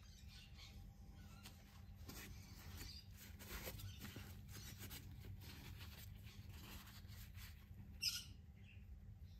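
Faint handling sounds: light rustling and scraping over a low steady hum, with one short sharp squeak about eight seconds in.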